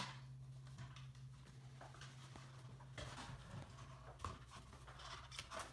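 Faint rustling and a few light clicks of a rubber band being wound around a rubber glove stretched over a plastic bottle's neck, with a low steady hum underneath.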